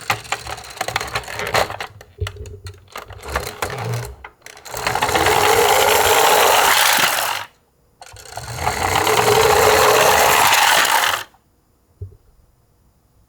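Toy garbage truck handled with small plastic clicks and rattles, then two whirring rattles of about three seconds each as it rolls along, with a short break between them.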